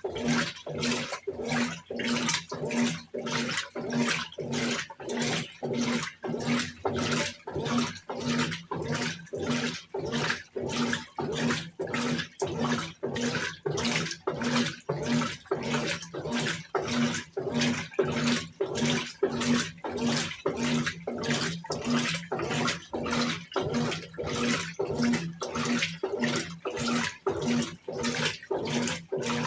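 Brastemp top-loading washing machine agitating a load in water: even, rhythmic sloshing strokes about two a second, with the motor's hum pulsing on each stroke.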